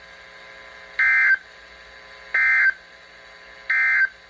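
Emergency Alert System end-of-message code: three short bursts of high-pitched digital data tone, a little over a second apart, which signal that the alert message is over.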